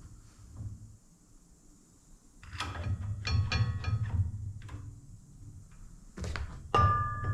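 Metal parts and tools being handled: a cluster of clinks and knocks with a bright ringing about two and a half seconds in, then a louder metallic clank near the end that rings on.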